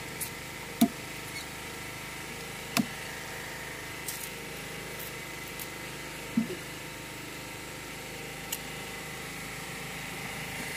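A long knife chopping at a sugarcane stalk: four sharp, widely spaced cuts, the last one faint, over a steady background hiss.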